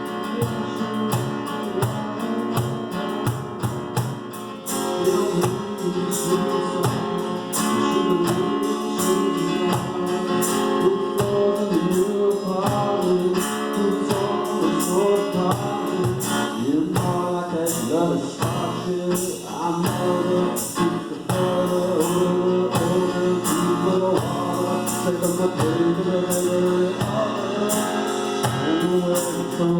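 Live acoustic band music: acoustic guitar with a steady percussion beat, joined by a singing voice about five seconds in.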